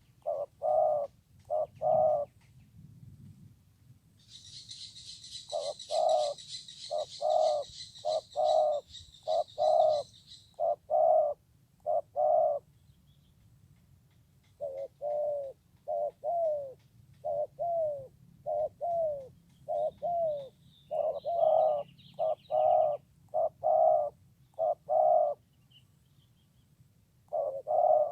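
Spotted doves cooing, repeated series of short hooting coos about two a second with brief pauses between phrases. A high rattling chatter overlaps from about four seconds in for some six seconds.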